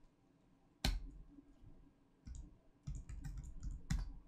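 Computer keyboard keystrokes: one sharp key press about a second in, a few faint taps, then a quick run of keys near the end closed by another sharp press, as a command is entered and a password typed at a terminal.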